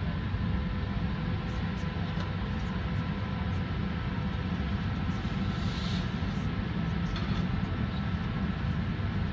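Steady cabin noise inside a Boeing 737-400 on the ground: a low rumble with a few faint, steady whining tones above it, typical of the jet engines and air systems at low power.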